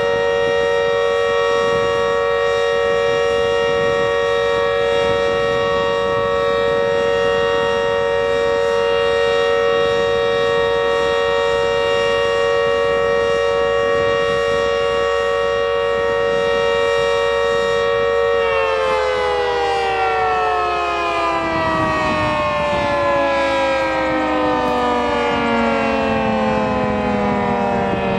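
Civil defense warning siren sounding a loud, steady chord of several tones, then winding down with its pitch sliding steadily lower from about two-thirds of the way in.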